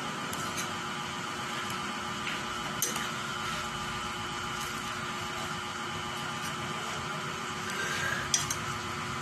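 A steady background hum, with a metal spoon clinking sharply against the cooking pan twice, once about three seconds in and more loudly near the end, while greens are stirred into the pan.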